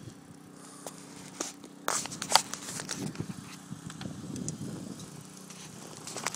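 Crackling, clicking handling noise from a phone being moved about, loudest about two seconds in, over a steady low hum.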